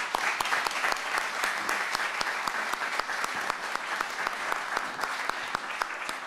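Audience applauding: a steady round of many people clapping.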